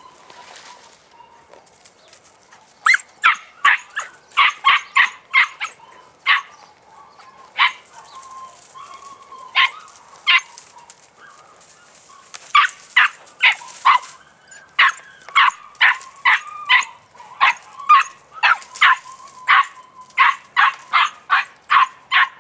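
Podenco puppy yapping in short, high-pitched barks, a few at a time at first and then in a fast, near-continuous run after a pause, as it hunts a rabbit in a brushwood pile.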